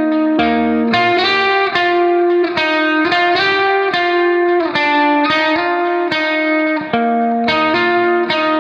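Background music: a guitar playing a melody of held notes that change every second or so.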